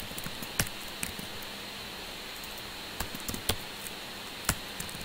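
Scattered keystrokes on a computer keyboard, about half a dozen single clicks spread unevenly with gaps of a second or more, over a steady hiss.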